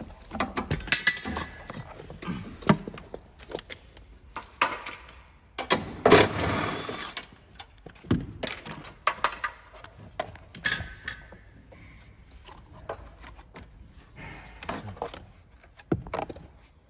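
Scattered clicks, knocks and clanks of hand tools against metal as the Toyota Auris hybrid battery pack and its mounting brackets are worked loose, with one louder rasping noise lasting about a second around six seconds in.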